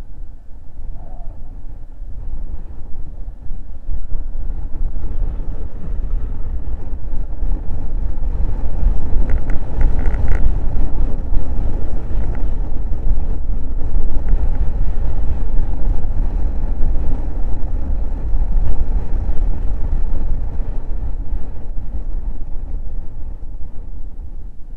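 Honda Forza 125 scooter under way: a steady low rumble of wind buffeting the microphone mixed with road and engine noise, growing louder about four seconds in.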